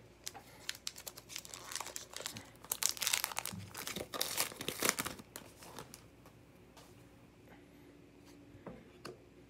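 Wrapper of a Topps Heritage trading card pack crinkling and tearing as it is opened by hand. The dense crackle lasts about five seconds and is loudest near the middle, then dies down to a few faint rustles.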